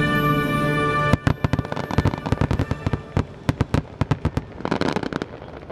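The show soundtrack's final held orchestral chord cuts off about a second in. Then comes a rapid, irregular volley of firework bangs from the finale barrage, which ends in a short rush of noise near the end.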